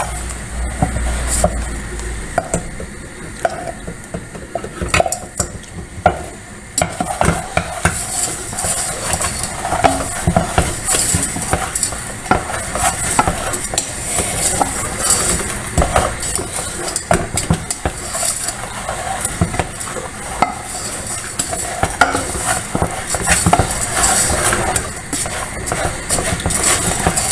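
A spoon stirring and scraping in a pan of slowly caramelizing sugar, with frequent clicks of the spoon against the pan over a steady sizzle.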